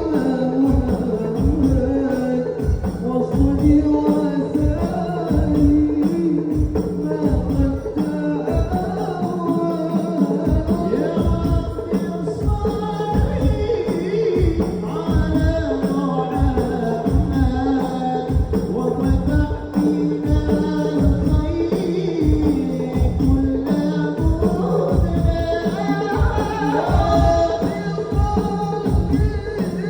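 Selawat devotional singing: a voice chanting a melody over hand-played frame drums that keep a steady beat of about two strokes a second.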